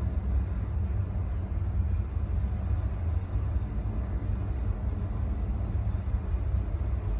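Steady low rumble of a Coastguard search-and-rescue helicopter hovering close by as a winchman is lowered on its cable.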